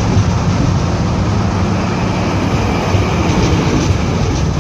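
GO Transit bilevel commuter train passing close by: a loud, steady rumble of steel wheels on the rails, with a few faint clicks near the end.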